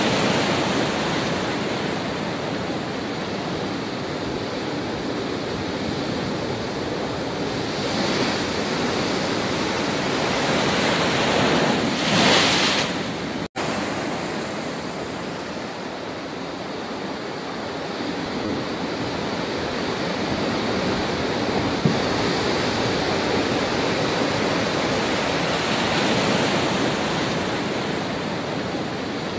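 Storm-driven sea surf breaking heavily against rocks, a continuous rush of water with wind buffeting the microphone. It swells loudest about twelve seconds in, and there is a momentary gap just after.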